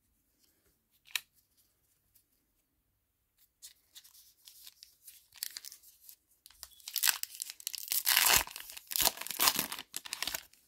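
A Topps Heritage baseball card pack being torn open by hand: the wrapper rustles and crinkles, then rips in several loud bursts near the end. There is a single sharp click about a second in.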